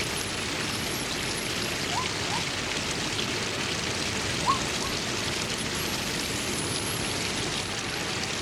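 Waterfall: the steady rush of falling water. A few short rising chirps cut through it about two seconds in and again around four and a half seconds in.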